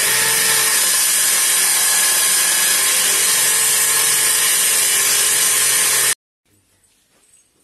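Homemade table saw's circular cutter, driven by an electric drill, running at a steady speed and cutting through a block of wood as it is pushed along the fence: a loud, even whir that stops abruptly about six seconds in.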